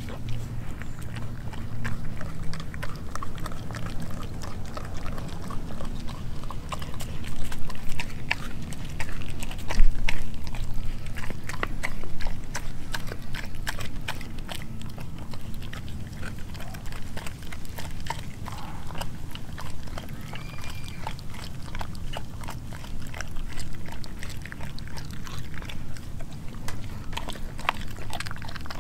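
Doberman chewing and gnawing a piece of raw pork skin: a dense, irregular run of short clicks and smacks from its jaws, loudest about ten seconds in.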